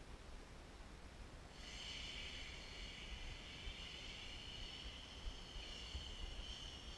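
A 64 mm eleven-blade electric ducted fan on a small RC foam glider whines as the plane flies past: a high, steady whine that starts suddenly about one and a half seconds in and wavers slightly in pitch.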